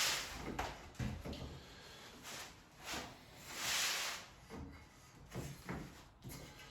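A length of wallpaper being handled and cut: two long, hissy swishes of paper sliding and rustling, with a few light knocks in between.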